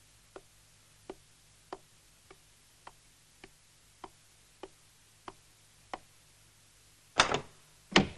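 Soft footsteps on a wooden floor, evenly spaced at a slow walking pace of under two steps a second. Near the end, a louder noise and a sharp click as a door is opened.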